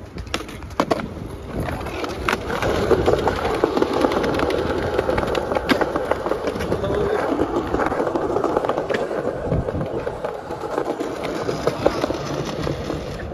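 Skateboard wheels rolling over stone paving slabs: a steady rolling rumble that grows louder about two seconds in, with sharp clicks now and then.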